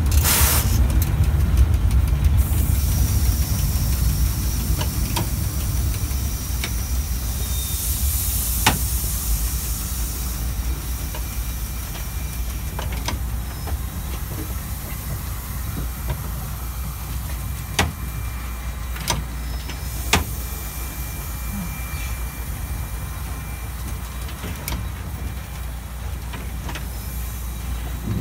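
Steam locomotive 25-026 heard from inside its cab while shunting: a steady low rumble with loud steam hissing for about the first ten seconds, then scattered single sharp clanks as it moves.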